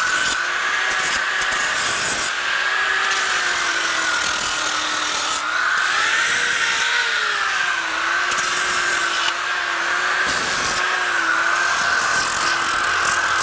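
DeWalt electric disc sander running against a wooden board. Its motor tone wavers slightly in pitch as pressure on the wood changes, under a steady scratchy sanding noise.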